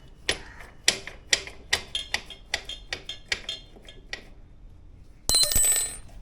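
Hand tools on the motorcycle's rear-wheel chain adjuster: a run of sharp metallic clicks and taps, about two or three a second, then near the end a louder metallic clatter that rings for about half a second.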